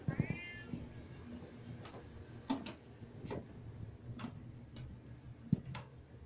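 A Siamese cat gives one short, falling meow at the start, followed by a string of sharp, irregular ticks, roughly one every half second to a second.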